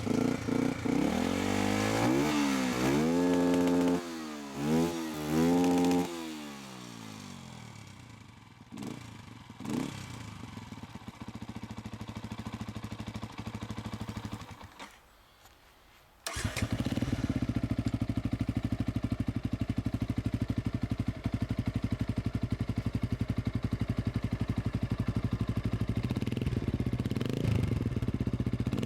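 Beta RR 125 LC motorcycle's single-cylinder engine revved up and down about three times, then dropping back and dying away to near silence. About sixteen seconds in it starts again and runs at a steady idle.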